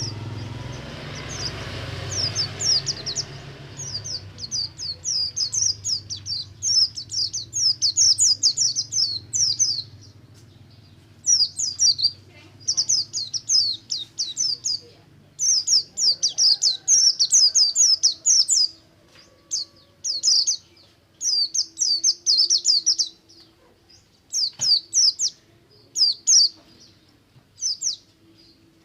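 A Buxtomi white-eye (pleci) singing a full, fast song of rapid high falling twitters, in bursts of one to three seconds with short pauses between. A low rumble underneath fades out over the first few seconds.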